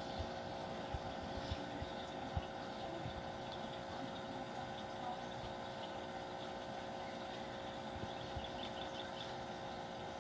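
Steady hum of a running aquarium or pond filter pump, with a few soft low knocks in the first couple of seconds.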